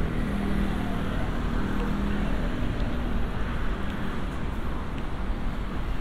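Steady city street traffic noise from cars running along the road, with a low engine hum over the first few seconds.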